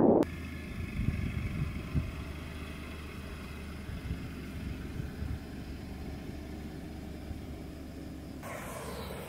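Dacia Duster 3 SUV with the 1.2 TCe three-cylinder mild-hybrid petrol engine running at low speed as it drives slowly along a dirt track: a steady low hum. A louder rushing noise comes in near the end.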